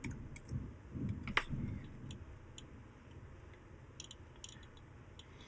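Faint scattered clicks and ticks, the sharpest about a second and a half in and a small cluster about four seconds in, with some soft low muffled sounds in the first two seconds.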